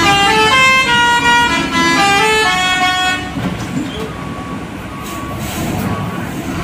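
A multi-tone musical vehicle horn plays a stepping tune, stopping about three seconds in. After that the heavy truck's diesel engine runs on as a low rumble.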